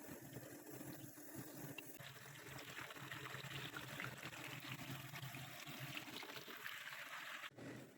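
Faint running, trickling water that comes in about two seconds in and cuts off suddenly near the end.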